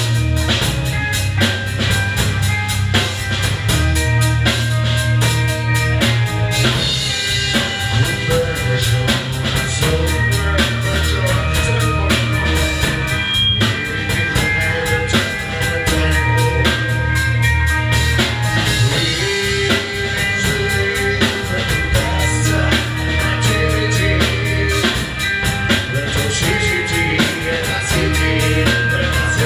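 A live rock band plays loud amplified rock, with electric guitar over a pounding drum kit.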